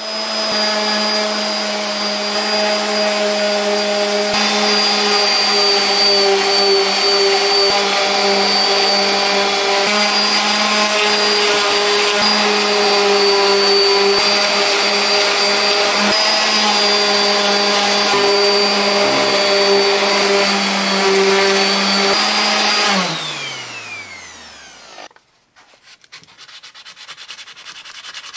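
Electric random orbital sander running steadily on the metal top plate of a Pioneer DJM-400 mixer, sanding off the old finish before repainting. About 23 seconds in it is switched off and its motor winds down, falling in pitch; then sandpaper is rubbed by hand over the bare metal in quick scratchy strokes.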